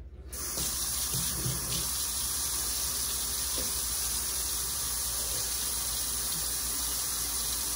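Kitchen faucet turned on, water running steadily into a stainless steel sink. It starts suddenly just after the beginning.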